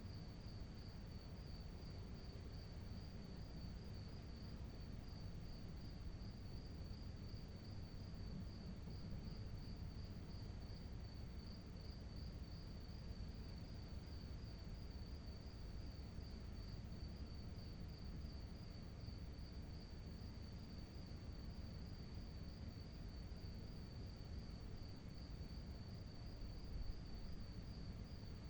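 A cricket singing at night: one steady, high, rapidly pulsing trill that never breaks, over a low background rumble.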